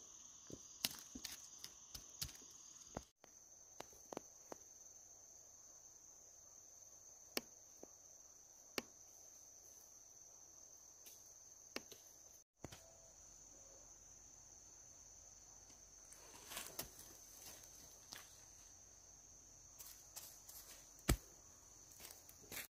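Insects trilling in a steady, high, even tone, with scattered light knocks and snaps over it. The sound cuts out briefly twice.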